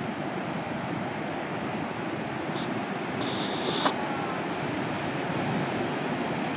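Steady noise of heavy ocean surf and wind buffeting the microphone. A short high tone sounds a little after three seconds in, followed by a sharp click just before four seconds.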